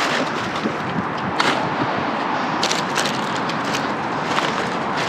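Rummaging through discarded items in a dumpster: scattered clicks, knocks and rustles over a steady rushing noise.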